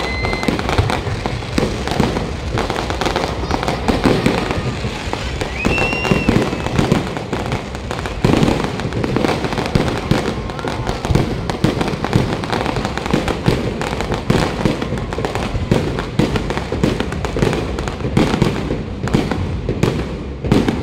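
Fireworks display at close range: a dense, continuous barrage of bangs and crackles from shells bursting overhead, with a few brief high-pitched tones over it.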